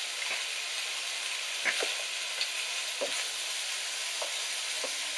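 Pork and black mushrooms sizzling steadily in a hot non-stick wok, with a wooden spatula knocking and scraping against the pan a few times as it stirs.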